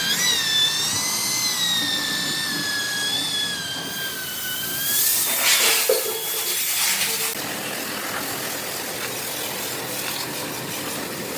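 A power tool running with a high, wavering whine for about four seconds, then a short burst of hissing noise, followed by steady machine noise.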